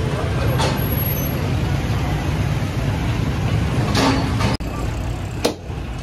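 Busy street traffic, a steady rumble of passing cars and motorbikes, with a brief hiss about four seconds in. After a cut, there is a single sharp knock of a butcher's cleaver striking a wooden chopping block.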